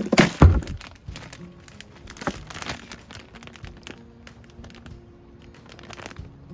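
Background music with steady held notes, over crinkling and rustling handling noises, with a loud low thump about half a second in.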